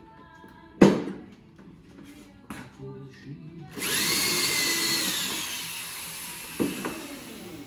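Electric drill boring into a wooden window sash: it starts suddenly about four seconds in, with a whine that falls in pitch as it slows and fades. A sharp knock about a second in, and a smaller knock near the end.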